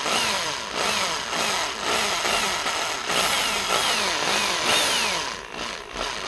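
Small drill boring out the rivet post of a diecast toy car's metal base, its motor pitch sagging and recovering about twice a second as the bit bites into the soft metal. The drill eases off briefly near the end.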